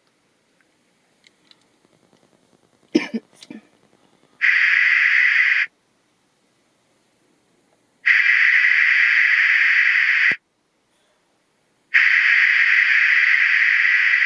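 Three bursts of steady mid-to-high hiss-like test noise from a hearing-test speaker, each one to two and a half seconds long, switching on and off abruptly. A short, low voice-like sound comes about three seconds in.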